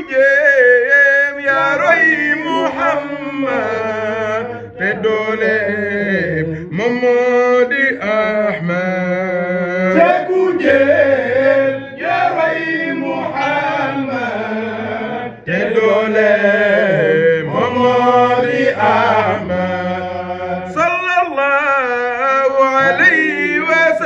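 Men chanting a Sufi zikr: a lead male voice sings long, wavering, ornamented phrases over a steady low held note.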